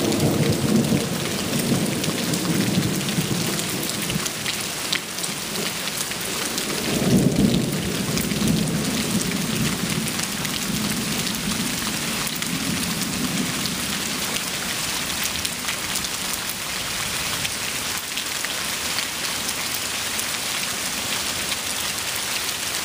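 Steady heavy rain pattering on a concrete pad and wet ground, with thunder rumbling low underneath. The thunder swells to its loudest about seven seconds in and rolls away by the middle, leaving only the rain.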